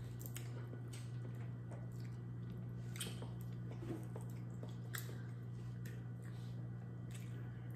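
Wet chewing and squishing of seafood, with scattered small clicks and snaps as crab and shrimp shells are picked apart by hand. A steady low hum runs underneath.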